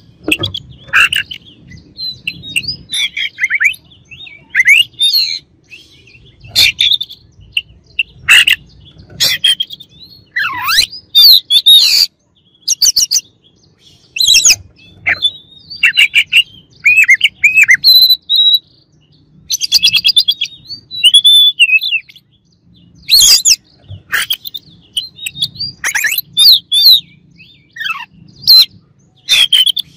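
Oriental magpie-robin singing loudly in quick, varied phrases of whistled notes mixed with sharp, harsh notes, with short pauses between phrases.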